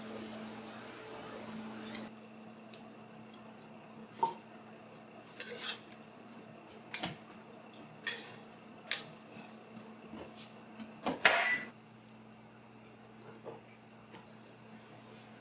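Dishes and cutlery clinking and knocking in a string of separate, irregular strikes, the loudest cluster about eleven seconds in, over a faint steady hum.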